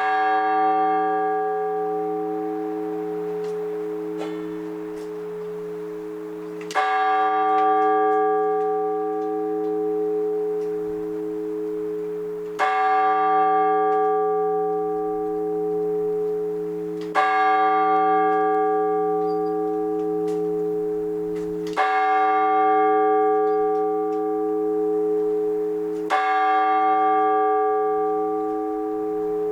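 Large Orthodox church bell tolled singly in the slow blagovest manner: six strokes about five seconds apart, each leaving a long humming ring that fades into the next.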